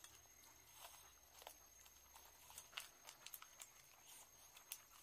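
Faint, irregular chewing and lip-smacking clicks of people eating rice and chicken curry by hand, over near silence.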